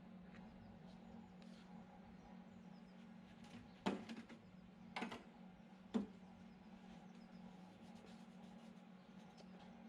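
A steady low hum, with three sharp knocks about a second apart in the middle.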